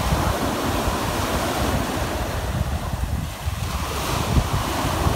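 Surf breaking and washing up a sandy beach, with wind buffeting the microphone; it eases briefly about three seconds in.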